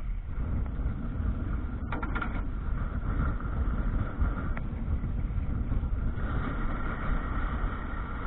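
Wind rumbling on the microphone of a sailing canoe under way, with a steady hiss of water rushing along the hull. A few brief knocks come about two seconds in.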